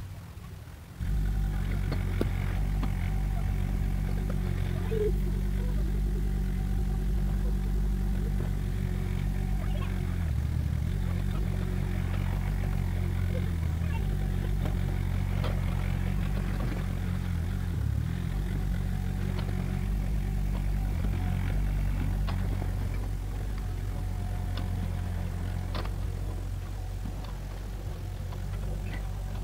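Diesel engine of a mini excavator running steadily while it digs, with brief dips in engine note as the load changes and occasional knocks of the bucket and tracks on dirt and stone. The engine comes in abruptly about a second in.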